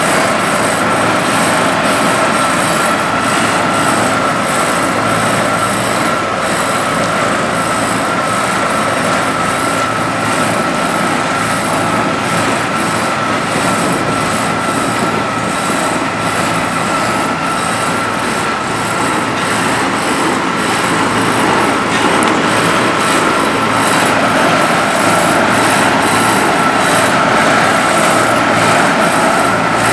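Heavy diesel road-construction machinery, an asphalt paver and the dump trucks feeding it, running steadily with a constant high whine over the engine noise.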